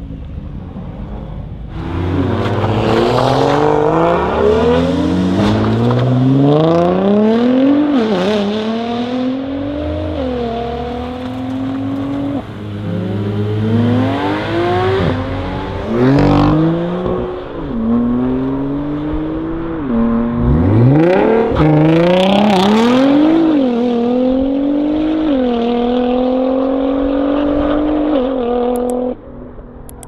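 Nissan GT-R Spec V's 3.8-litre twin-turbo V6, breathing through a titanium exhaust and upgraded Y-pipe, accelerating hard through the gears. The revs climb steeply, drop sharply at each quick upshift and climb again, over several runs, and the sound cuts off abruptly near the end.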